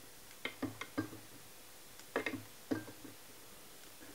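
Small handling sounds from fly tying at a vise as red floss is wound onto the hook for the fly's body. About eight short, light taps and clicks come in two clusters, one about half a second in and one a little past the middle.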